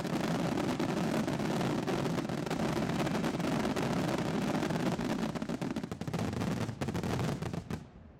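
Fireworks finale: a dense, unbroken barrage of shell bursts and crackle, thinning into scattered bangs from about seven seconds in and dying away near the end, which marks the close of the display.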